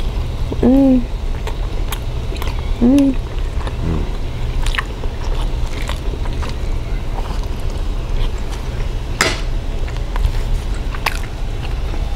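Two people chewing fried Spam and sausage with their mouths close to the microphone: wet mouth clicks and smacks, and two short appreciative "mmm" hums in the first three seconds. A sharper click comes about nine seconds in, and a steady low hum runs underneath.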